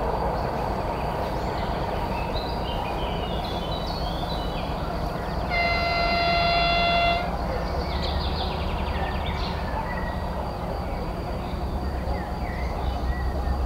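2TE10-series diesel locomotive with 10D100 two-stroke opposed-piston engines running with a low, steady rumble, sounding one horn blast of about a second and a half near the middle. After the horn the engine rumble grows louder, and birds chirp throughout.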